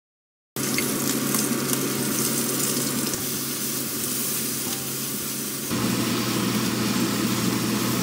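Shell-on prawns sizzling in soy sauce in a hot wok, starting about half a second in, over a steady low hum.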